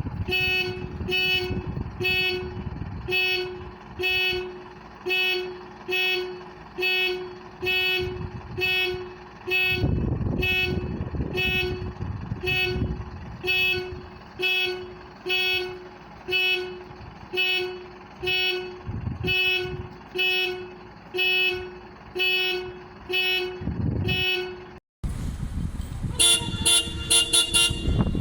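Bus horn sounded in a long run of short, evenly spaced toots, about one and a half a second. After a brief break near the end, a brighter, higher horn toots faster.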